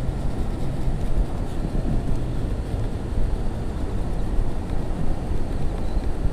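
Wind buffeting the microphone: a steady low rumble with no clear strikes or tones.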